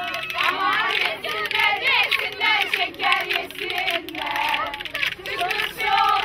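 A group of young women singing and calling out together, several voices overlapping, with the clacking of hand-held wooden spoons clicked in time.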